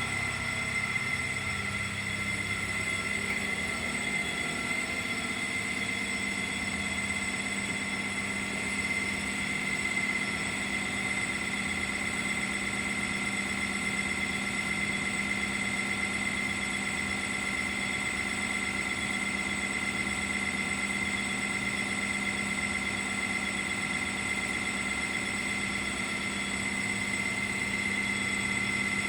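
Baker sawmill's power unit running steadily with no load, a constant low hum with a high whine over it.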